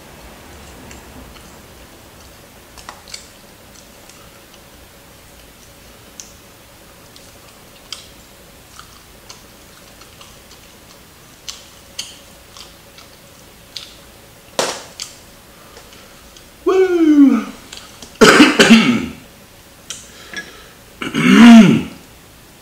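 A man eating crispy fried chicken: faint scattered mouth clicks and chewing, then in the last few seconds a falling throaty grunt and two loud coughs, with the heat of a 2x spicy sauce still in his mouth.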